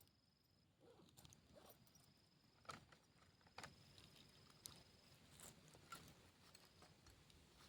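Near silence with a few faint scattered ticks and taps.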